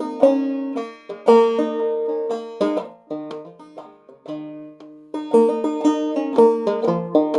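Clawhammer banjo, tuned low in a Sawmill (modal) tuning, played solo: plucked notes with brushed strums, hammer-ons and slides. It is quieter and sparser for a couple of seconds in the middle, then busier again.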